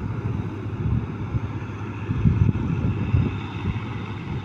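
A New Holland combine harvester's diesel engine running steadily, a low drone, with wind buffeting the microphone in the middle.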